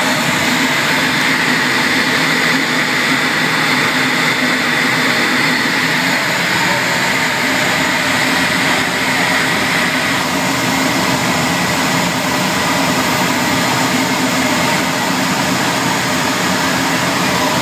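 A Eurofighter Typhoon's twin EJ200 turbofans running at low power while the jet taxis, heard from inside the cockpit as a steady rush with a high whine.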